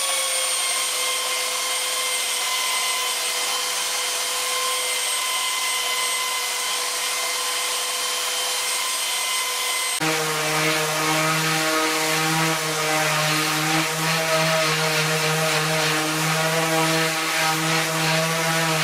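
Ryobi corded belt sander running steadily with a high whine as it sands the weathered edge of a wood shutter. About ten seconds in it gives way to a cordless oscillating sander with a lower, buzzing hum, sanding between the louvers.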